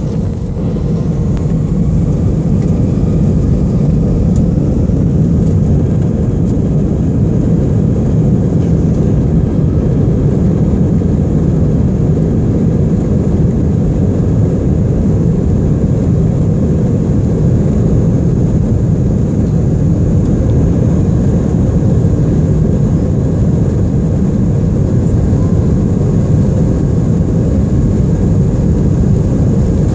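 Cabin noise of an Airbus A319 on its take-off roll: the twin turbofan engines at take-off power, with a loud, steady low rumble. The noise swells a little about a second in, then holds.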